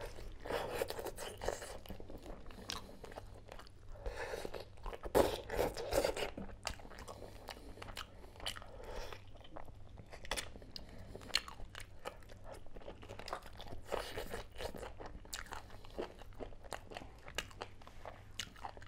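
A person biting and chewing chicken leg pieces by hand: many short crunches and clicks, loudest about five seconds in.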